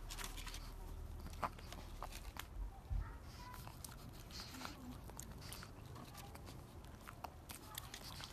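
A pug licking and nibbling at a treat held in a person's fingertips: a scatter of small clicks and smacks from its mouth, over a steady low rumble.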